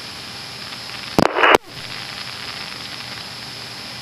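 Steady hiss of the aircraft's intercom and radio audio, broken about a second in by a loud half-second burst of radio static that cuts off abruptly, as a transmission is keyed and dropped.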